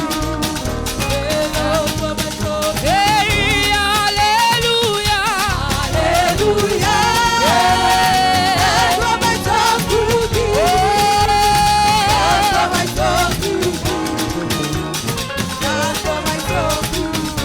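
Upbeat live gospel praise music: a busy percussion groove over a steady bass, with a melody of held, wavering notes on top.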